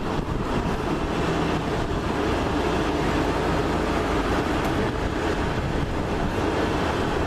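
Strong wind blowing across the microphone: a steady, loud rushing noise with a low rumble.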